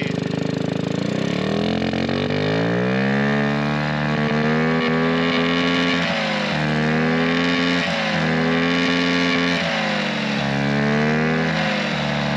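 Souped-up Honda Ruckus scooter engine being revved hard. Its pitch climbs over the first couple of seconds, then rises and falls in slow swells as the throttle is worked. The scooter is fogging smoke, and the rider is revving it to blow that out.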